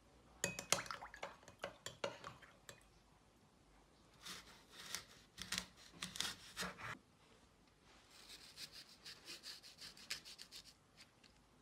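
Kitchen knife cutting through crisp fresh apples on a wooden cutting board: short crunching cuts and light knocks of the blade on the board, in two clusters, then a quicker run of lighter scraping crunches near the end.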